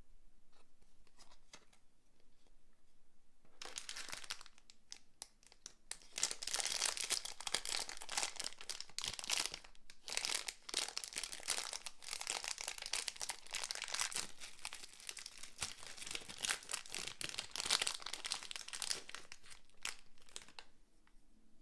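Crinkly packaging wrapper of a blind-box figure being handled, crumpled and torn open. It is quiet with a few light ticks for the first few seconds, then crinkles and rustles almost without a break until it dies away near the end.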